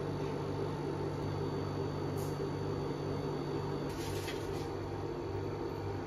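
Steady hum of a drink vending machine's refrigeration unit and fan, with faint light ticks about two and four seconds in.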